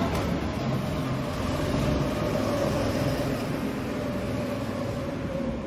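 Go-kart engines running steadily in a large indoor kart hall, a continuous hum under the hall's general noise.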